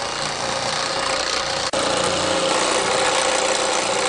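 Baileigh PH-19 power hammer running with a beading die, hammering a bead into a sheet-metal panel in a steady, dense clatter, with one momentary break partway through.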